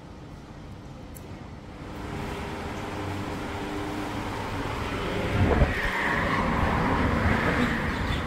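Street traffic noise with vehicle engines running, rising from quiet room tone about two seconds in and growing louder, with a sharp thump about five and a half seconds in.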